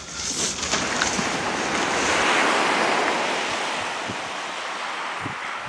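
Sea surf breaking and washing up a stony beach, swelling to a peak about halfway through and slowly dying away.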